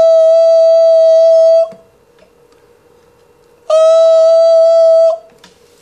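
A man sounding a high, steady note of about 655 Hz into a microphone, held twice: the first note ends a little under two seconds in, and the second starts near the middle and lasts about a second and a half.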